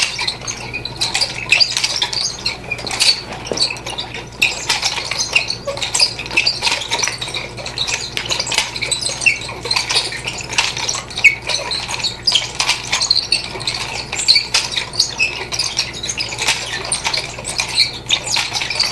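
Nunchaku spun in continuous figure eights, the chain rattling and clinking in quick irregular clicks as the sticks whirl, wrap around the hand and are caught again.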